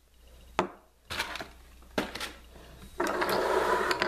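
Clear plastic blister packaging and plastic toy figures being handled. A few sharp clicks and knocks come first, and about three seconds in the plastic starts a loud crinkling rustle.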